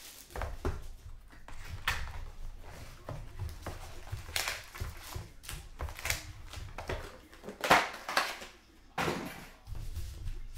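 Handling noise from a cardboard trading-card box being opened and its foil-wrapped packs slid out and handled: irregular rustling, scraping and crinkling of cardboard and foil, with a louder scrape about three quarters of the way through.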